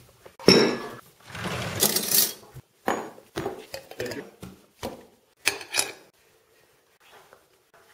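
Glass jam jars, a metal screw lid and a metal spoon being handled on a tabletop: a quick run of clinks, knocks and rattles that stops about six seconds in.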